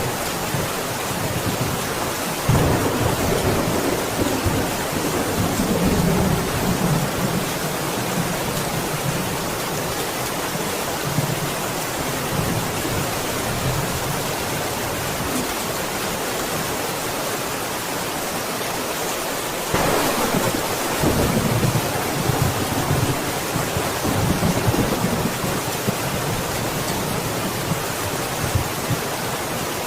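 Steady heavy rain, with two rolls of thunder: one starting about two and a half seconds in, another about twenty seconds in, each rumbling and fading over several seconds.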